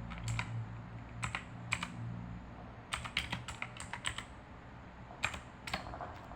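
About a dozen light, irregular clicks and taps of small hard objects, over a low steady hum.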